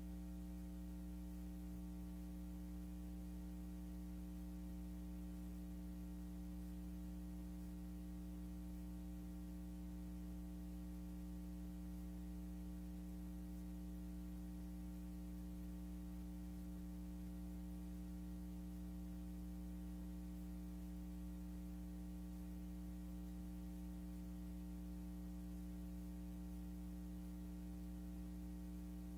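Steady electrical mains hum: a low drone with a stack of buzzing overtones and faint hiss, never changing. It is noise on the soundtrack of a silent film transfer.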